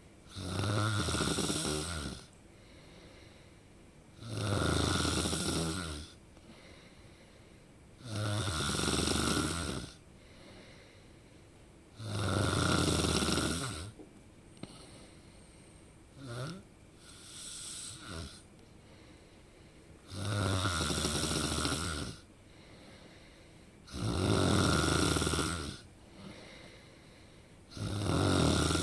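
A person snoring loudly in a regular rhythm, one snore of about two seconds roughly every four seconds, with quieter breathing between. About midway, a brief sound and a weaker one take the place of one snore.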